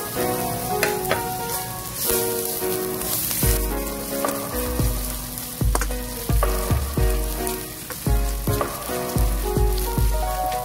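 Minced garlic and julienned ginger sizzling in hot cooking oil in a wok, stirred and scraped with a spatula, over background music with a low beat.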